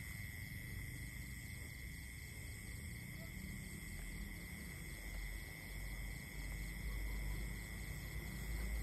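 Night-time field ambience: insects trill steadily with a high, even tone, over a low rumble of wind or handling noise.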